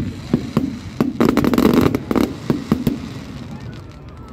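Aerial firework shells bursting in quick succession: repeated sharp bangs, with a dense rapid volley about a second in, thinning out toward the end.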